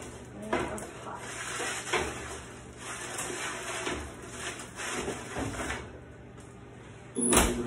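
Metal sheet pans scraping and knocking on the wire racks of a commercial convection oven as they are turned and slid back in, with one loud clank of the stainless oven door shutting near the end.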